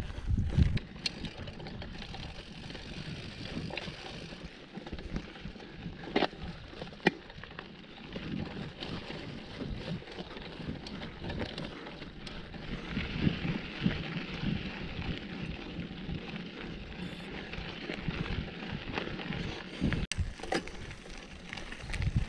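Mountain bike being ridden along a dry dirt trail, heard from an on-board action camera: a rumble of tyres and wind on the microphone, with a few sharp knocks and rattles as the bike goes over bumps.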